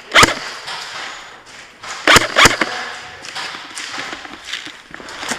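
Airsoft gunfire in an indoor CQB arena: one sharp crack right at the start, then two more about a quarter-second apart some two seconds later, with fainter ticks in between.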